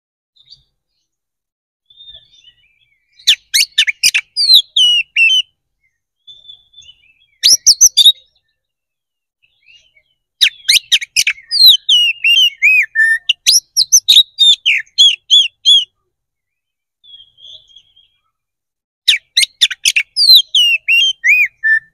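Male oriental magpie-robin (kacer) singing loudly in full, combative song. It gives four bursts of rapid harsh clicking notes and falling whistles, the longest about five seconds, with a few soft quiet notes in the pauses between.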